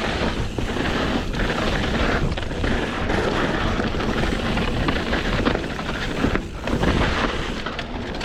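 Wind rushing over the microphone of a mountain bike rider's camera during a fast descent, with a steady low rumble and scattered clicks and knocks from tyres rolling over rocky dirt and the bike rattling.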